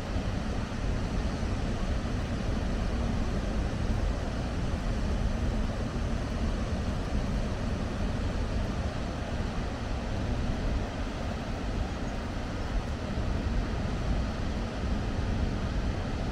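Steady rushing of water pouring from the open spillway gates of the Đa Nhim dam during a flood release, an even noise with a heavy low rumble.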